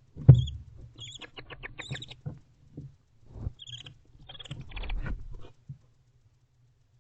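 Barn owls making quick, high chittering calls in short runs, mixed with thumps and scratchy scuffling as they move about in the wooden nest box; the loudest sound is a thump just after the start.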